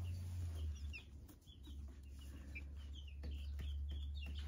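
Meat-bird (broiler) chicks in a brooder peeping, many short high chirps scattered throughout, over a low steady hum.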